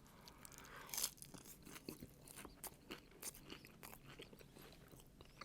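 Close-up chewing of crispy Taco Bell Mexican pizza: a run of small crackling crunches, with one louder crunch about a second in.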